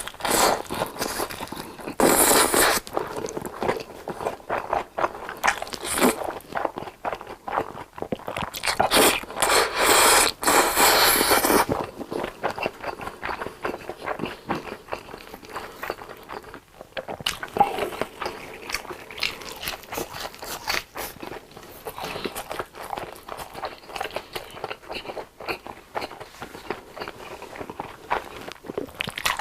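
Close-miked biting and chewing of breaded fried long cheese sticks. Loud crunches come in clusters through the first twelve seconds or so, then give way to quieter, irregular chewing.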